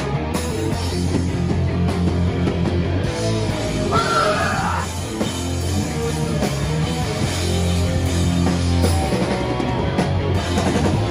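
Hardcore punk band playing live and loud: heavily distorted guitars, bass and drums driving through a song.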